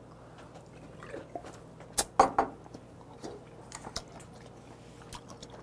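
Mouth sounds of a person drinking and eating: a sharp knock about two seconds in as the beer glass is set down on the table, then chewing with small wet clicks.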